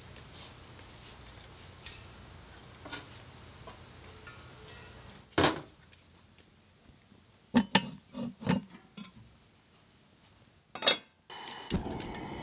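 Several sharp metal clanks and knocks at a cast-iron outdoor gas burner, then near the end the burner lights and runs with a sudden steady rush of flame.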